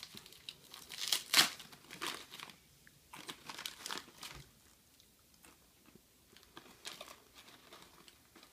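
Clear plastic snack bag crinkling and tearing as it is pulled open by hand, the sharpest rustles in the first two seconds, then sparser, fainter crackling.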